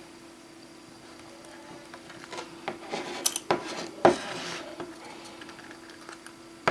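Small hard clicks and taps of repair tools against the phone and work surface, with short scrapes, bunched together in the middle of the stretch; the loudest click comes about four seconds in. A faint steady hum runs underneath.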